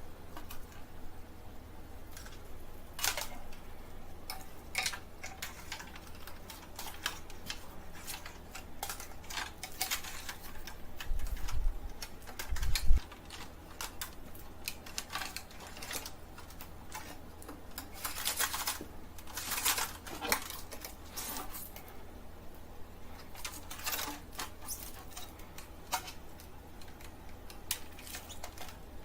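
Irregular clicks, taps and rustles of hard plastic and packaging being handled, with a couple of heavier low thumps about twelve seconds in, over a steady low hum.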